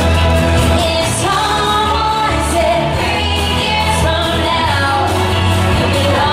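Pop song with singing over a steady bass line.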